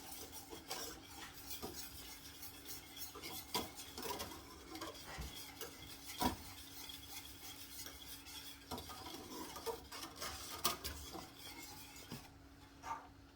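A spoon stirring sauce in a saucepan, with irregular clinks and scrapes against the pot's sides and bottom, which stop near the end.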